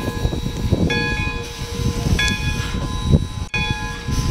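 Steam locomotive's bell ringing steadily, one strike about every second and a quarter, over a low rumble.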